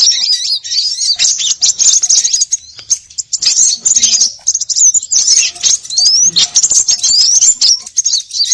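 A busy chorus of many small songbirds chattering and chirping rapidly in high, fast calls, with clear rising whistles cutting through every second or so. This is a bird-lure recording of noisy, agitated small birds, played to draw small birds in.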